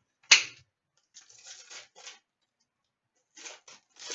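Trading-card pack wrapper torn open with a sharp crinkle about a third of a second in, followed by bouts of rustling and scratching as the cards are handled.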